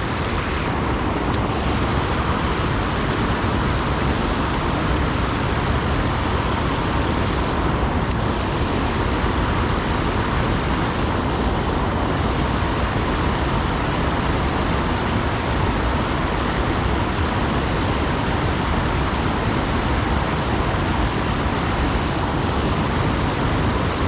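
Steady rushing of a small creek's flowing water, an even noise that does not change.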